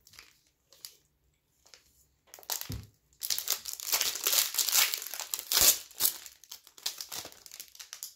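A 2021-22 Upper Deck CHL Hockey foil card-pack wrapper crinkling as it is torn open and the cards are pulled out. A few light handling clicks come first, then about five seconds of dense crinkling starting roughly two and a half seconds in.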